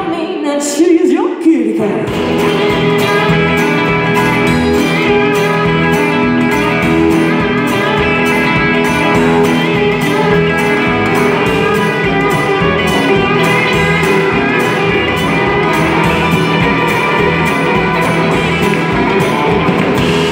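Live band playing with singing: electric and acoustic guitars and drums keeping a steady beat. A sung note slides at the start, and the bass and drums kick in about two seconds in.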